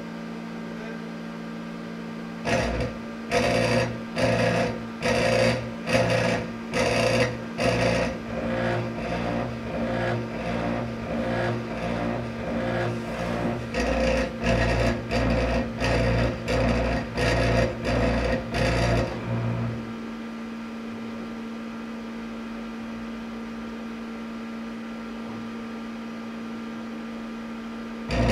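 The club light's stepper motors drive the mirrors in a rhythmic run of buzzing pulses, each about half a second long and roughly one and a half a second, over a steady low hum. The buzzing stops about two-thirds of the way through, leaving only the hum, and starts again at the very end.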